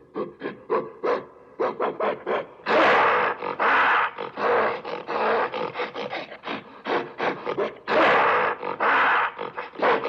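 Ape or monkey calls: a fast run of short grunting pulses, a few a second, broken by louder, longer calls about three seconds in and again near the end.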